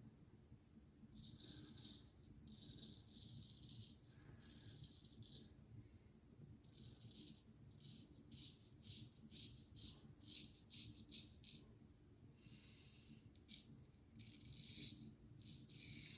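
Thiers-Issard frameback straight razor scraping through lathered stubble, stroke after stroke: several longer strokes first, then a run of short quick strokes about two a second, faint.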